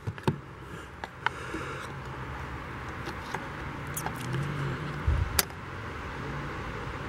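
Several sharp clicks and taps of a steel saw blade against the plastic housing of a Black & Decker power handsaw as the blade is handled and slid into its slot, the loudest near the start and about five seconds in, over a steady low hum.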